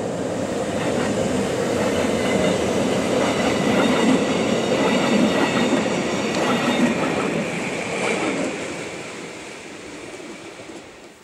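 Montreux–Oberland Bernois electric passenger train passing at close range. The wheels clatter over the rail joints, with a faint high squeal. It grows louder to a peak midway, then fades as the coaches roll away.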